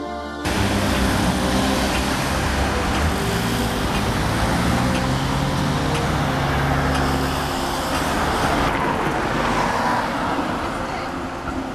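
City street traffic: cars and a tram passing close by, a steady rumble of engines and tyres on the road.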